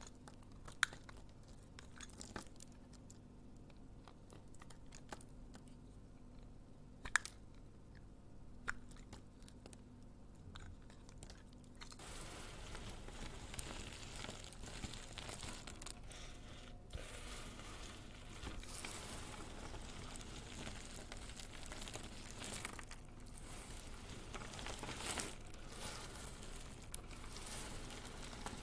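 Soap being cut and crumbled: a few sharp taps and clicks, then from about twelve seconds in a dense, steady crunching and crinkling.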